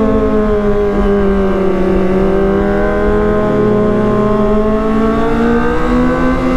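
Kawasaki ZX-25R's high-revving 250 cc inline-four engine under way: its note falls over the first two seconds, then climbs slowly back as the revs build, over a steady low rushing noise.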